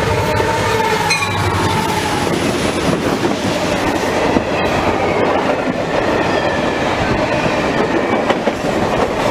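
Canadian National diesel freight train passing close by: the locomotive's engine drone falls away about two seconds in, then a loud, steady rumble and clickety-clack of freight cars rolling past.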